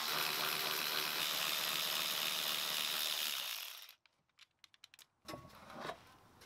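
Cordless electric ratchet running steadily as it spins out an under-tray bolt, stopping about three and a half seconds in; a few faint clicks follow.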